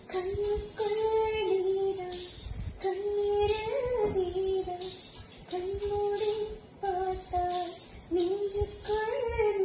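A woman singing a lullaby alone, without accompaniment, in a high voice: held notes that rise and fall, with short breaks between phrases, sung to lull a dog to sleep.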